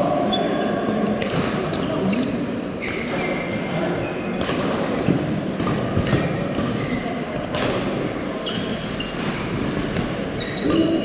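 Badminton rackets smacking shuttlecocks during rallies, sharp hits at uneven intervals from the near court and others around it, with short squeaks of shoes on the court floor. A steady hubbub of voices carries through the large hall.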